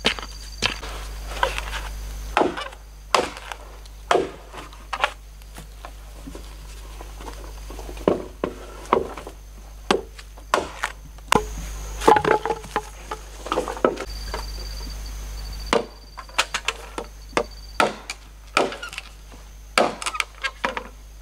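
A large knife chopping into green bamboo poles: sharp, irregularly spaced knocks of the blade on the wood, some in quick runs of two or three.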